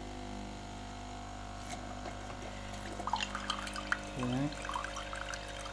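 Polaris PACM 2060AC automatic coffee machine running its milk-system cleaning cycle: a steady pump hum, and from about three seconds in water spitting and trickling out through the spout.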